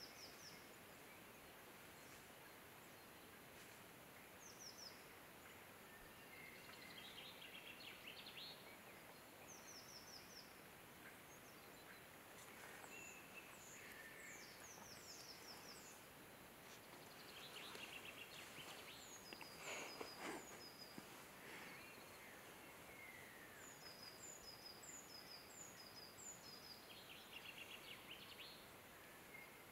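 Faint woodland birdsong: several small songbirds singing short chirping phrases and trills, one repeating a quick series of notes near the end, over a soft background hiss. A brief rustle rises about twenty seconds in.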